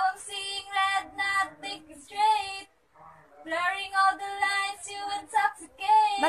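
A teenage girl singing solo without accompaniment, in phrases with a pause of about a second near the middle.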